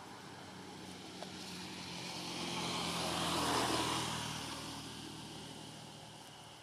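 An engine passing in the distance, growing louder to a peak about three and a half seconds in and then fading away, with a steady low hum under it.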